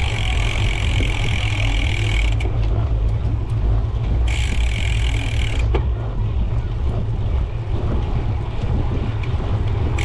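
Wind rumbling on a helmet- or bike-mounted action camera's microphone while riding a mountain bike. Over it a steady high buzz, typical of a rear freehub ratcheting while coasting, cuts out about two seconds in, comes back for a second or so in the middle and returns near the end.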